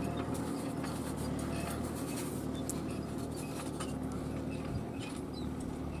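Fendt 415 Vario tractor engine running steadily under load while pulling a four-furrow mounted plough through the soil, with scattered faint clicks.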